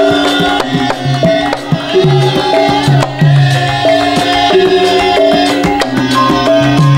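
Javanese gamelan playing the accompaniment for a Lengger dance: hand-played kendang drum strokes over a running pattern of struck, ringing metallophone notes.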